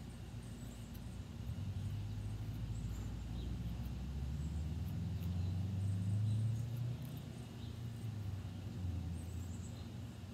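A road vehicle passing: a low rumble that swells to its loudest about six seconds in, then fades. Faint scrapes of a knife shaving curls from a wooden stick run underneath.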